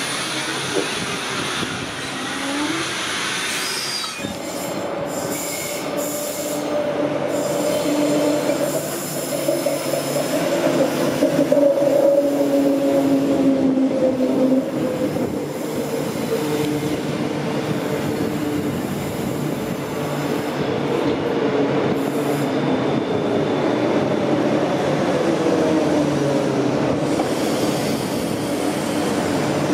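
Queensland Rail electric suburban train running along a station platform, its wheels and running gear giving a long squealing whine that slowly falls in pitch over a steady rumble.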